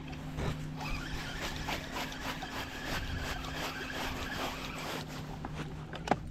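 Spinning reel being cranked to retrieve a lure after a cast, with small irregular clicks, over a steady low hum.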